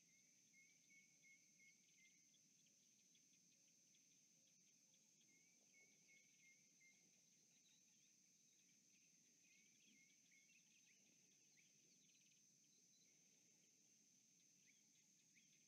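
Near silence: faint natural ambience, a steady high insect drone with a bird's short repeated chirping notes in three brief phrases.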